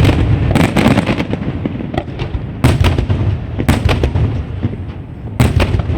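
Fireworks going off: a run of loud, sharp bangs, about five in six seconds, with smaller crackles and a low rumbling echo between them.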